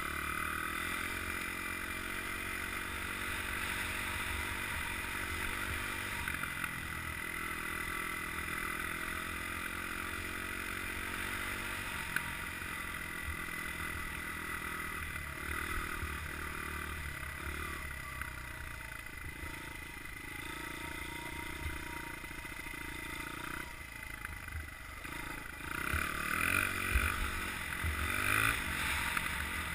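Honda CRF100F dirt bike's single-cylinder four-stroke engine running while it is ridden, its pitch stepping up and down with throttle and gear changes. It gets louder and rougher near the end.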